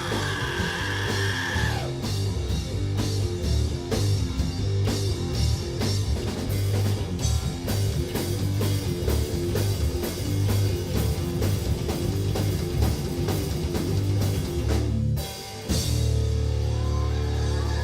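Live rock band with electric guitars, bass and drum kit playing at a fast, driving pace. About fifteen seconds in the band cuts out for a moment, then a single chord is held and left ringing without drums.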